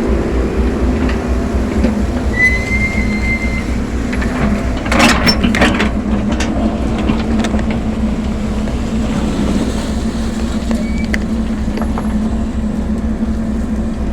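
Backhoe engine running steadily under load, with a brief high metallic squeal about two seconds in and a quick cluster of clanks around five seconds in as the machine works.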